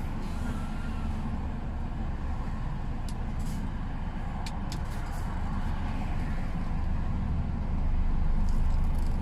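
Road traffic passing on a highway over a steady low engine rumble, swelling louder near the end as vehicles go by.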